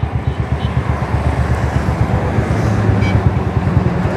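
Yamaha R15 V3's 155 cc single-cylinder four-stroke engine running steadily under way at about 50 km/h, with wind rushing over the microphone.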